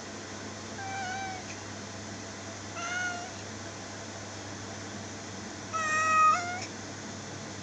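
A kitten meowing three times, short calls about two seconds apart, the third the loudest and longest.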